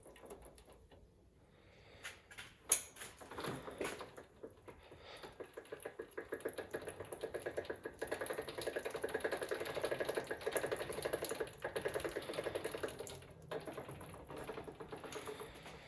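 Rising-and-falling mechanism of a heavy home-built bench drill press in operation: a knock, then about ten seconds of a fast, even rattling tick.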